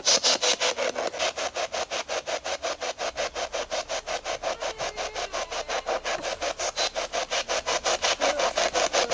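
Spirit box sweeping through radio stations: a fast, even chatter of static bursts, about six or seven a second.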